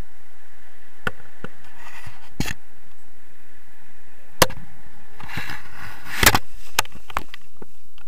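A paraglider landing in grass, heard from a camera on the harness: scattered sharp knocks, then a dense cluster of knocks and scuffs from about five to seven seconds in, loudest a little after six seconds, as the pilot touches down. Under it runs a faint steady wind noise on the microphone.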